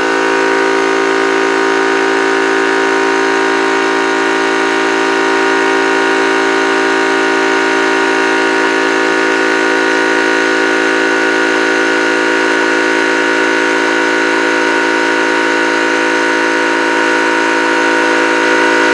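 Yong Heng high-pressure PCP air compressor running steadily, a very loud, even drone with a fixed pitch, as it fills an empty air rifle's air reservoir.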